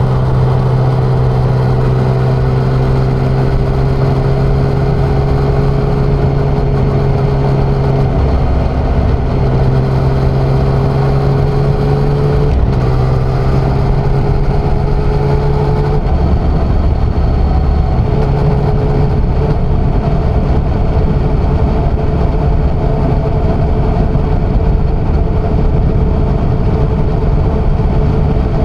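Yamaha XSR900's inline-three engine running while riding at a steady pace, under continuous wind and road noise. The engine note climbs slowly and drops away a few times in the first half, then holds steadier.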